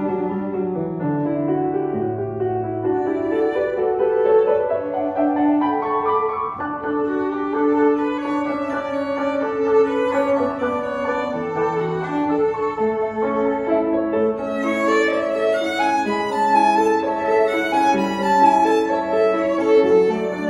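Violin and grand piano playing a piece together, the violin carrying the melody over the piano accompaniment; a few seconds in, the line climbs step by step in pitch.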